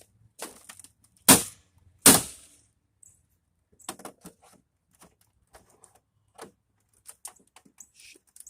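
Hammer blows on a discarded TV's casing: two loud sharp strikes about a second apart, then scattered smaller cracks and clicks.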